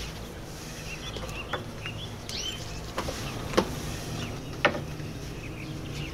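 Small birds chirping in short rising and falling calls, with three sharp knocks about three, three and a half and four and a half seconds in, the last two the loudest, over a steady low hum.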